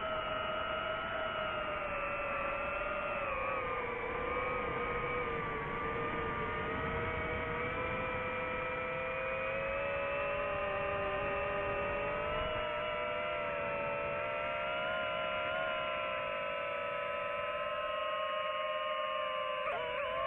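DJI FPV quadcopter's motors and propellers whining in flight: a steady hum of several stacked tones whose pitch sags a few seconds in, drifts back up, and wobbles briefly near the end, over a low rush of wind.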